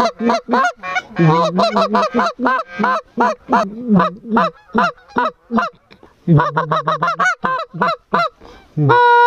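Goose honking: a rapid run of short honks and clucks, several a second, with two brief pauses, ending in one long drawn-out honk.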